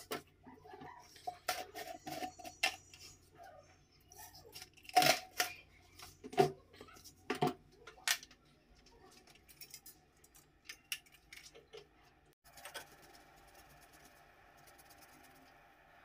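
Clicks and knocks of a plastic jar and utensils being handled over a steel saucepan, a string of sharp taps loudest about five seconds in. A steady hiss starts about twelve seconds in.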